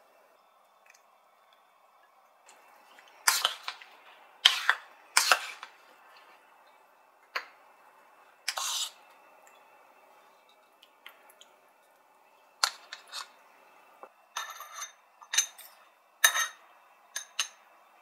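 Spoons knocking and clinking against a wooden bowl and small ceramic dishes as tomato salad is served: a dozen or so separate sharp taps and clinks, the loudest a few seconds in, a few ringing briefly near the end.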